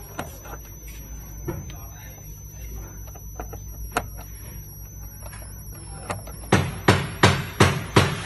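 Small clicks and plastic knocks from wiring connectors being handled and unplugged on a massage chair's control board, over a steady low hum. Near the end come five louder knocks in quick succession, about three a second.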